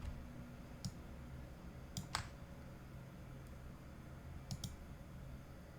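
Faint computer mouse clicks: a single click, then two quick double clicks, over a low steady hum.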